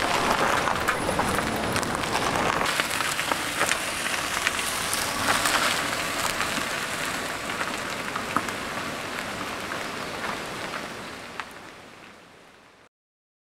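A Nissan minivan's tyres rolling slowly over loose gravel and grit, a steady crackling crunch that fades out near the end.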